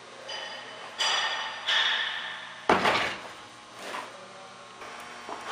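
Wooden crates of apples being slid across a truck bed and set down: two sharp scrapes about a second in, then a loud knock just under three seconds in.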